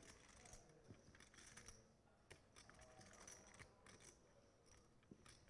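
Near silence with faint, scattered clicks of clay poker chips being handled and pushed into the pot at a card table.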